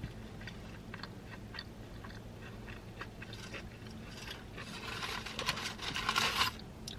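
Close-up chewing of a mouthful of burrito, with small wet mouth clicks. Over the last couple of seconds there is a louder crinkling of the foil wrapper as the burrito is handled and set down, over a steady low hum.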